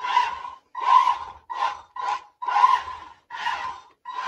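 A small combat robot's drive motors, run by a 40 A dual-motor ESC, driven across carpet in short stop-start bursts of about half a second, roughly seven in four seconds. Each burst carries a steady high whine over a rough whirr.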